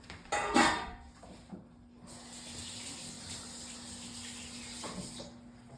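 A popcorn maker heating kernels: a steady hiss with a low hum starts about two seconds in and cuts off near the end, before any popping. A brief loud clatter comes just under a second in.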